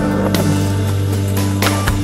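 Background music with sustained low bass notes and a few sharp percussive hits.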